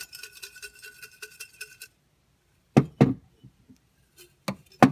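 Folded paper slips rattling and clinking inside a glass jar as it is tipped and shaken, the glass ringing faintly. Then come two sharp knocks of the jar against the tabletop about three seconds in, and another near the end.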